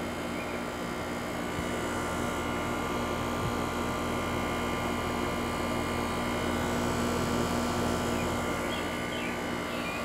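Air conditioner's outdoor unit running steadily while R-454B refrigerant is being charged into it: a compressor hum and condenser fan noise, with several steady tones over an even rush.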